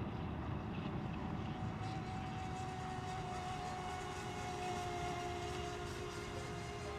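Radio-controlled racing boats running laps at speed, their motors making a steady high whine over a low rumbling noise.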